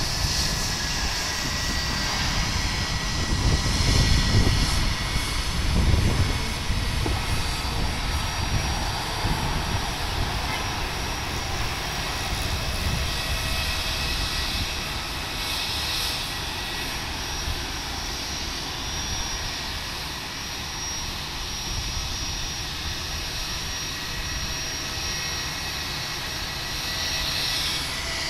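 Jet engines of an Airbus A320-family airliner: a steady high whine over a deep rumble. The rumble swells twice in the first six seconds, then settles to an even, lower drone.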